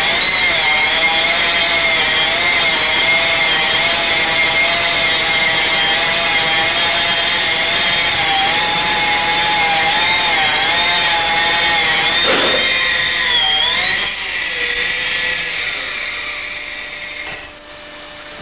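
Hydraulic stone-cutting machine cutting a stone slab: a loud, steady cutting whine whose pitch wavers as it works. About fourteen seconds in it drops off and winds down.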